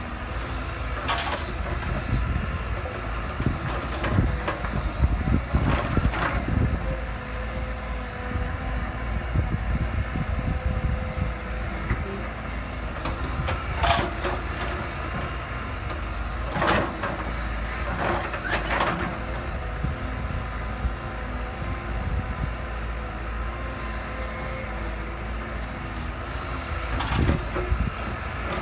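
Heavy diesel machinery running steadily, with a few sharp metal clanks and knocks; the loudest come about 14 and 17 seconds in.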